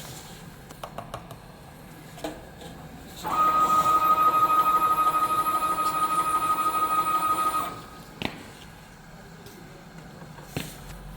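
Spice powder filling machine's auger drive motor running for about four seconds with a steady high whine, dosing a measured charge of powder, then stopping abruptly. A few light clicks and knocks before and after.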